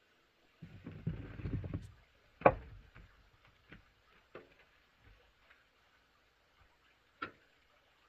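A low rustling rumble lasting about a second, then one sharp knock and a few lighter, scattered knocks.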